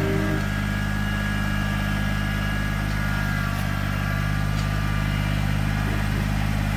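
Kubota BX23S compact tractor's three-cylinder diesel engine running steadily at a constant speed.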